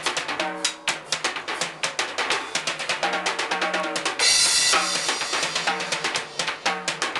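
Acoustic drum kit played freely: a fast, busy stream of snare and bass drum strokes, with a longer cymbal crash about four seconds in.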